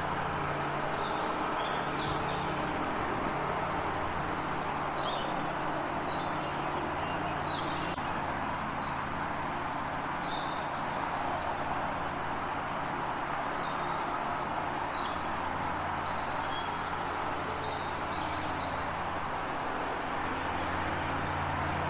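Small birds chirping in short, high calls scattered throughout, over a steady noisy background and a low hum.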